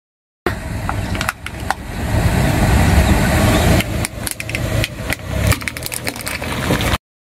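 A car tyre rolling slowly over a small green toy on asphalt, with a low rumble from the car under sharp cracks and crunches as the toy is crushed. The sound starts suddenly about half a second in and cuts off abruptly near the end.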